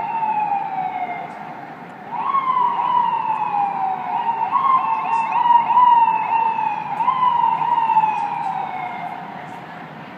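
Emergency vehicle sirens sounding in repeated sweeps, each jumping up and then sliding down in pitch over a couple of seconds, with two sirens overlapping at times.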